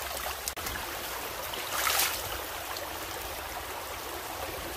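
Shallow stream running over cobbles and pebbles, a steady rush of water, with a short louder swish about two seconds in.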